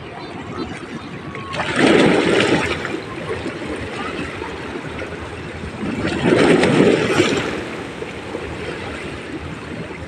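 Waves washing in at the shoreline, two surges about four seconds apart over a steady wash of water.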